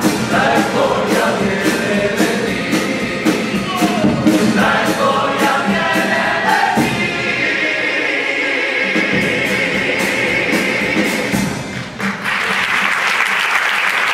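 Male carnival comparsa choir singing in harmony to Spanish guitars with a steady beat, closing the song on a long held final chord. About twelve seconds in the music stops and the audience breaks into applause.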